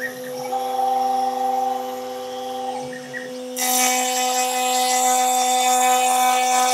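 1 kW milling spindle of a Stepcraft M1000 CNC router running steadily while a facing bit skims the top of a wooden board. The cutting whine rises twice, and from about halfway in it turns much louder and rougher as the bit takes a fuller cut across the wood.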